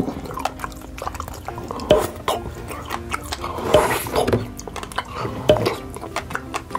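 Wet sucking and slurping of jelly candies drawn out of small plastic candy bottles by mouth, with sharp pops and smacks several times, over background music.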